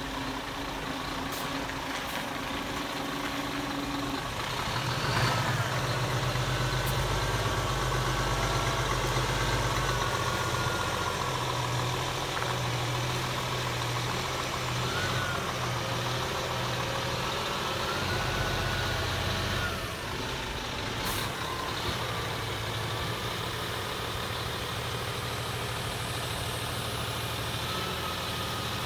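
Scania G480 hooklift truck's 13-litre inline-six diesel idling steadily, a little louder through the middle stretch.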